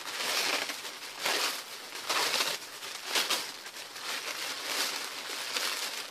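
Paper wrapping being crumpled and torn open by hand, crinkling in repeated bursts about once a second.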